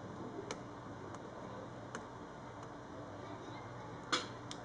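Scattered small clicks and taps from fingers handling the opened plastic and metal chassis and internal parts of a Samsung Chromebook, with a louder pair of clicks near the end, over a faint steady room hum.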